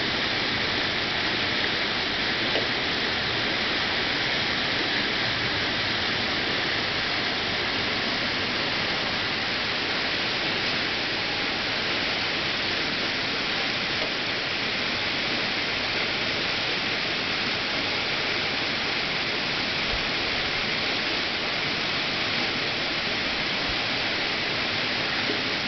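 Swollen, flooded creek rushing steadily over its banks: a constant roar of fast-moving water with no breaks or changes.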